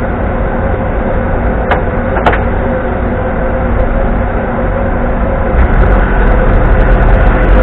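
Hong Kong double-decker tram running on its rails, heard from the front platform: rumbling noise with a steady hum, two sharp clicks a little after a second and a half and just past two seconds, and a deeper rumble growing louder over the last two seconds.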